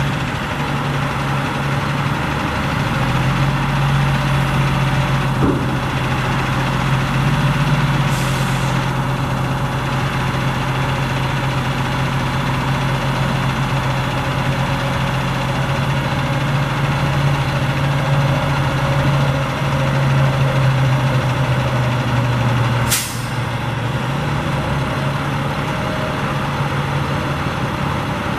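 Freightliner M2 dump truck's diesel engine idling steadily with a low hum. A brief hiss comes about eight seconds in, and a sharp burst of air about 23 seconds in, after which the low hum drops a little.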